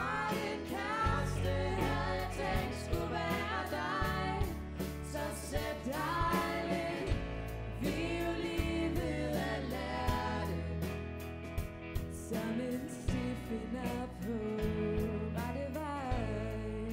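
A pop band playing, with a drum-kit beat, bass, electric guitars and keyboards, while a girl sings the lead melody.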